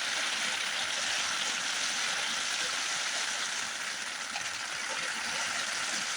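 Heavy rain falling steadily on a tent, an even hiss of downpour on the fabric.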